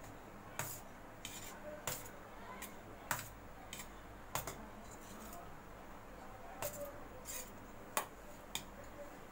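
Steel spoon clinking and scraping against a stainless steel bowl while stirring steamed ragi flour. Short, light clinks come at an irregular pace about every half second to a second, the sharpest about three seconds in and about eight seconds in.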